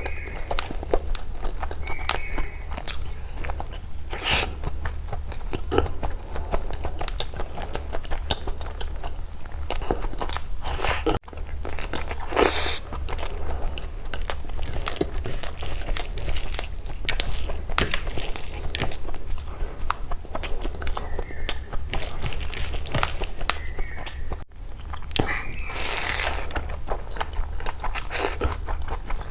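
Close-miked eating of chicken biryani and egg curry: repeated bites, crunches and wet chewing, over a steady low hum.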